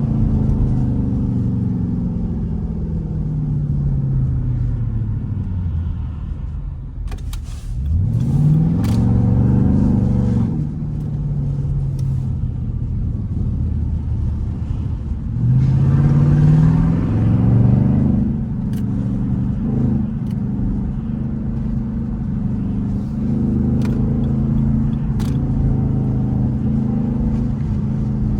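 Jeep Grand Cherokee SRT8's straight-piped V8 exhaust while driving: the engine note falls, then rises twice under acceleration, about eight and sixteen seconds in, before settling to a steady cruise.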